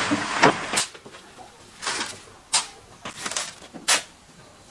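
Cement poured from a bag onto a pile of coarse sand, then a shovel scraping sand in a steel wheelbarrow, four strokes about a second apart.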